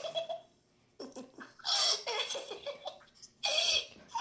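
A child giggling in several short, breathy bursts.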